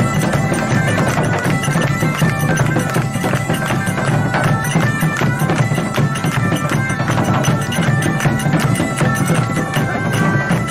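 A medieval band of several bagpipes plays a folk dance tune over a steady drone, with hand-held drums beating along.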